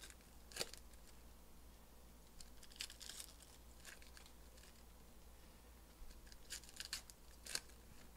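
A foil trading-card pack wrapper being torn open and crinkled, then the cards inside handled: faint, short crackles and rustles in a few clusters, the sharpest about half a second in and again near the end.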